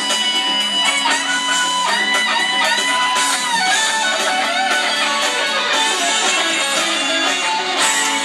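Live rock band playing an instrumental passage, with electric guitar and saxophone over drums and bass.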